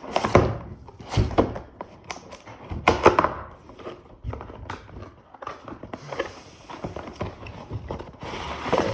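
Cardboard product box and its packaging being handled and opened: irregular knocks and thunks, then a stretch of rubbing and sliding near the end.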